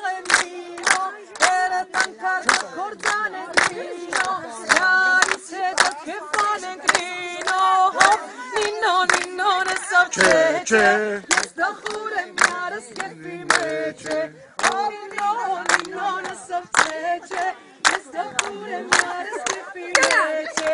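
A woman singing a song, with people clapping along in a steady beat of about two claps a second; lower voices join in briefly about halfway through.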